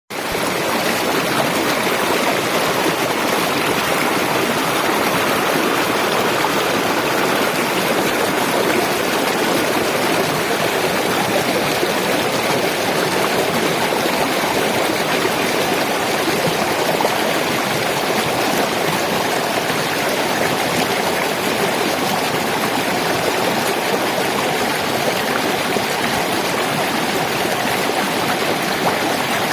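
Flowing water running steadily, an even rushing sound that does not break or change.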